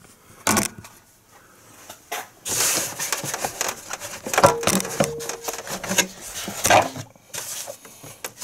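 A plastic engine cover and rubber air intake duct being handled and pulled up against their rubber grommets. Plastic and rubber rub, rustle and knock, with a short squeak about halfway through.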